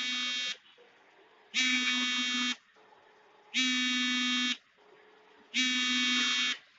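An electronic buzzer beeping at one steady pitch, each beep about a second long and repeating every two seconds.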